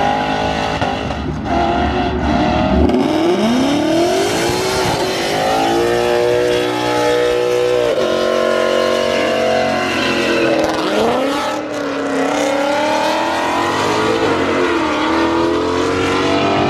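Ford Mustang's engine revving hard through a burnout, its pitch rising and falling again and again as the driver works the throttle, with the spinning rear tyres squealing.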